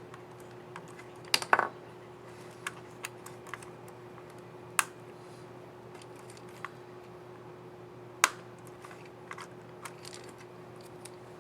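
Small plastic clicks and snaps of a laptop keycap and its scissor mechanism on a Lenovo IdeaPad 3 15IIL05 keyboard being handled and pressed into place: scattered light clicks, with sharper snaps about a second and a half in, near five seconds and about eight seconds in. A steady low hum runs underneath.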